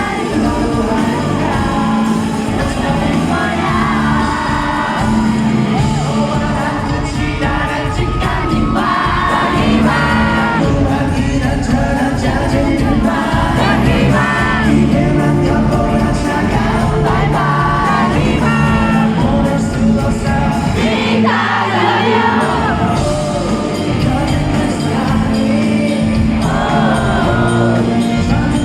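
Live rock band with bass guitar, guitars and drums playing while a male singer sings, with the audience singing along or cheering; the low end drops out briefly about two-thirds of the way through.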